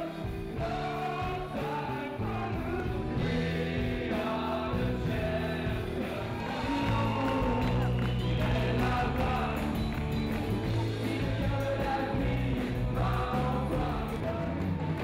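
A group of people singing together along with live band music.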